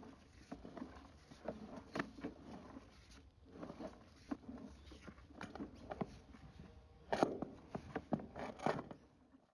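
Faint, irregular knocks, clicks and scraping or rubbing sounds, with a cluster of sharper knocks about seven seconds in; cuts off at the end.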